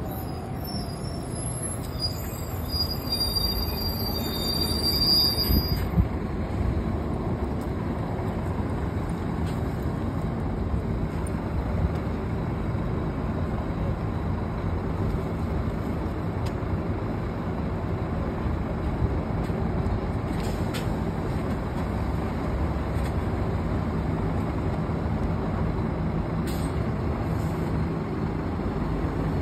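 LiAZ-5250 city bus pulling into a stop: a high-pitched brake squeal for the first few seconds, a short thump about six seconds in, then the engine idling steadily while the bus stands at the stop, with a couple of short hisses later on.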